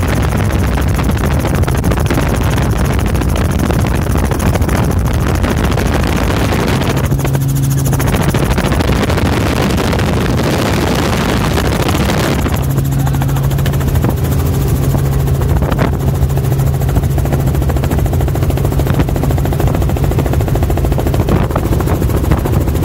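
Helicopter in flight, heard from inside the cabin: loud, steady rotor and engine noise. A low steady hum comes in briefly about seven seconds in, drops away for a few seconds, and returns for the second half.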